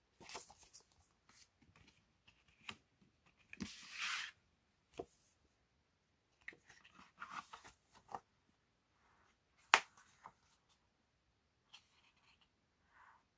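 Paper handling: rustling and crinkling as a folded printed sheet, photocards and album papers are moved and photobook pages are opened, in short scattered rustles with one longer swish about a third of the way in and one sharp tap about three quarters through.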